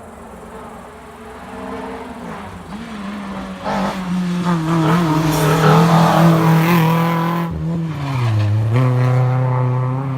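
Small race-prepared car at full throttle on a slalom hill climb, its engine note building as it comes close and loudest about halfway through. Around three quarters of the way in the pitch dips and then climbs again as it changes gear and pulls away.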